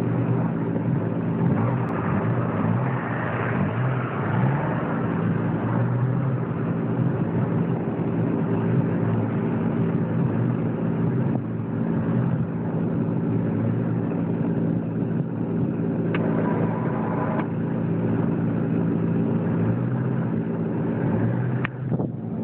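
Honda Civic car engine running steadily under a continuous even hiss, with a couple of brief clicks about two-thirds of the way through.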